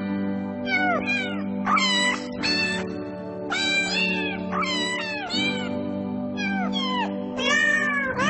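A cat meowing over and over, about a dozen short meows that each drop in pitch, over background music with steady held notes.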